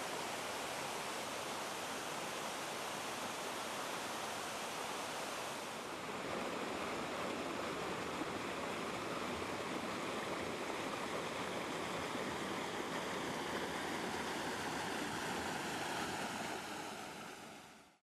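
Water cascading over rocks in a small rocky waterfall, a steady rushing. The sound shifts slightly about six seconds in and fades out near the end.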